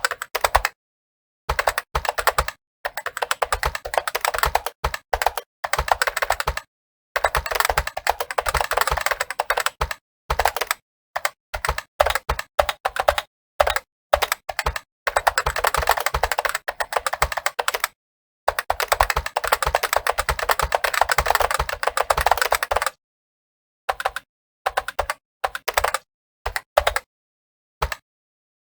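Fast typing on a computer keyboard: rapid runs of keystrokes lasting several seconds at a time, broken by short pauses, with sparser keystrokes near the end.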